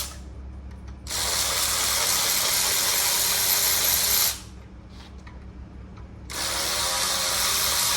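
Air-powered ratchet running with a steady hiss in two bursts of about three seconds each, the second about two seconds after the first, spinning out bolts on a 6.0 LS V8 already broken loose with a breaker bar.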